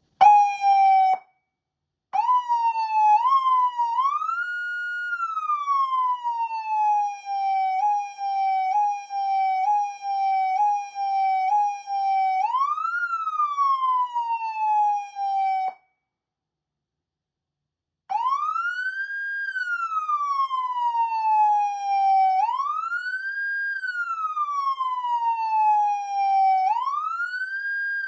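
Federal Signal MS4000U undercover electronic siren running through its tones. It opens with a short blip, then stepped rising tones and a sweep up and down, then a run of quick rise-and-drop steps. After a pause of about two seconds it settles into a wail that rises quickly and falls slowly about every four seconds.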